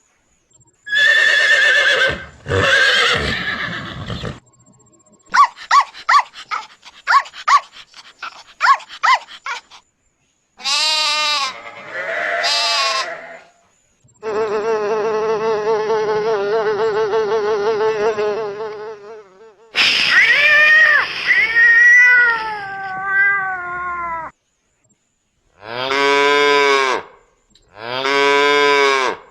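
A sequence of recorded animal sounds, one after another: a horse neighing, a dog barking about six times, a sheep bleating twice, a mosquito's steady buzz for several seconds, a cat meowing, and a cow mooing twice.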